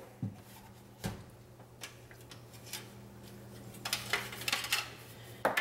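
Light metallic clicks and knocks from handling a car stereo head unit and its metal mounting sleeve, with one sharper knock about a second in and a quick run of rattling clicks about four seconds in.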